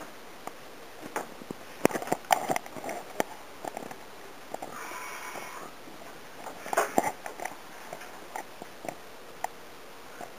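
Scattered soft knocks, clicks and rustles of people moving about a small room, with a brief hiss about five seconds in.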